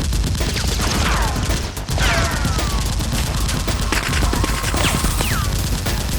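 Rapid gunfire sound effects of many shots in close succession, with falling ricochet-like whines about one and two seconds in and again near the end.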